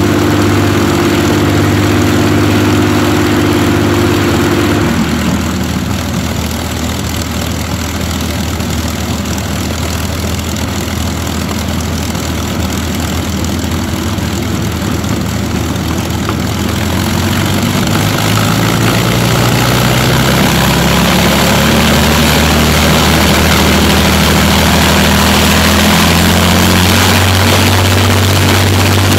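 Rolls-Royce Merlin V12 aero engines running on ground test stands with a propeller turning. About five seconds in the engine note drops. From about eighteen seconds it climbs steadily for several seconds as the engine is run up, then holds at the higher speed.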